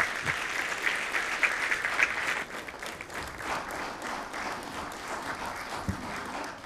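Audience clapping, loudest over the first couple of seconds and then thinning out.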